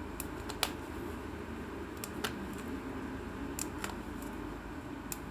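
A handful of short, sharp clicks scattered at irregular intervals as the stitches of a trouser hem are cut while it is unpicked, over a steady background hum.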